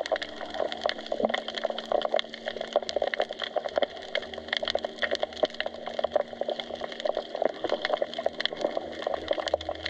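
Seabed soundscape recorded underwater: a dense, steady crackle of sharp clicks and snaps.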